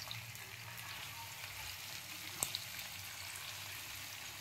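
Raw jackfruit pieces sizzling steadily as they fry in hot mustard oil, stirred with a spatula. One sharp tap comes about halfway through.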